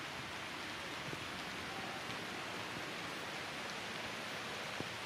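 Steady, even hiss of light rain falling on forest foliage, with one faint tick near the end.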